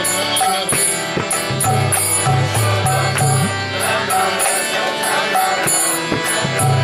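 Kirtan music: devotional chanting accompanied by a drum and small hand cymbals, which keep a steady beat of about two cymbal strikes a second over sustained low notes.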